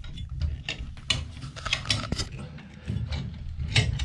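Chrome bathtub spout being turned by hand onto its threaded, Teflon-taped pipe adapter: irregular clicks and scrapes of the metal threads and of hands on the spout, a few a second.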